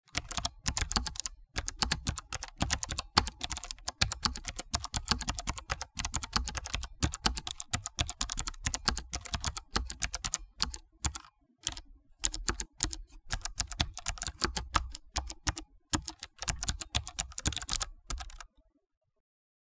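Rapid, irregular clicking like keys being typed on a keyboard, in quick runs broken by short pauses, stopping abruptly near the end.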